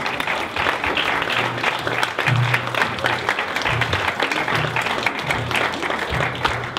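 Audience applauding steadily, with dense continuous clapping, over background music with a low bass line.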